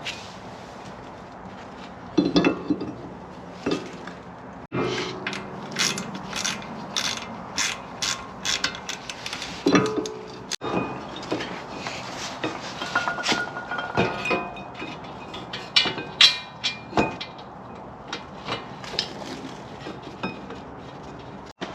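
Hand ratchet clicking in short runs, with metal tools and brake parts clinking, as the rear brake caliper and rotor are bolted back on.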